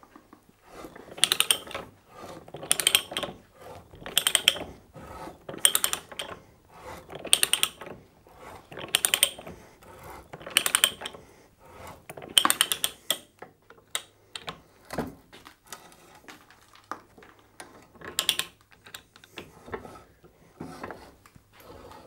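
Ratchet pipe-threading die stock being worked back and forth as its die cuts a half-inch taper thread onto low carbon steel pipe: the ratchet clicks in bursts about every second and a half, then more sparsely and quietly in the second half.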